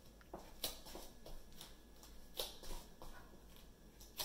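Faint, irregular soft thuds and rustles of a person moving while shadowboxing jab-cross-jab punches.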